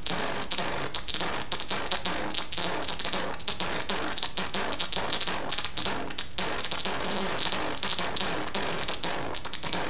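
Wet, slime-coated plastic rain clothes rustling and crinkling, with small squelching clicks as the body moves in the slime.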